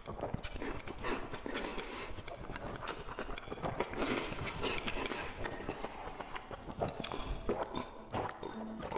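Close-miked chewing of a mouthful of rice and stir-fried egg, with a dense run of wet mouth clicks and smacks; near the end, drinking from a glass.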